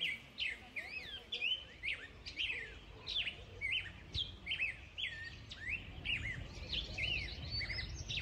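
Small songbirds chirping and singing, several short rising and falling chirps a second overlapping from more than one bird, over a low rumble that grows stronger in the second half.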